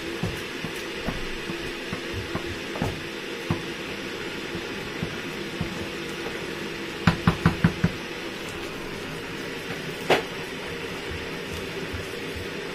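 Wooden spoon working thick amala dough in an aluminium saucepan, with soft thuds, then a quick run of about five knocks against the pot about seven seconds in and one louder, ringing knock about three seconds later. A steady hum runs underneath.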